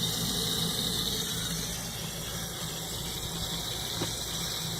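Water hissing as a thin jet sprays steadily from a small leak at a glue joint in a pressurised PVC irrigation mainline, with a faint low hum underneath.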